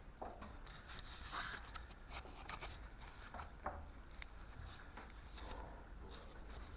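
Quiet footsteps and scuffing, with scattered small clicks and rustles, over a low steady rumble.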